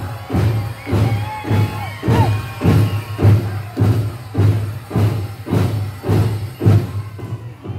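Powwow drum group beating a big hand drum in a steady beat of about two strokes a second, with singers' voices over it. The drumming stops near the end as the song ends.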